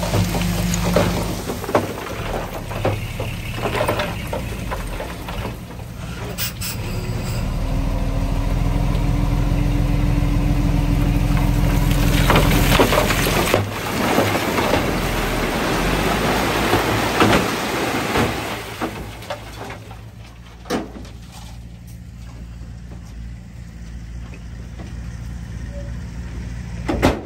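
Heavy diesel machinery engine running, with scattered clanks and knocks. It grows louder through the middle and then eases off.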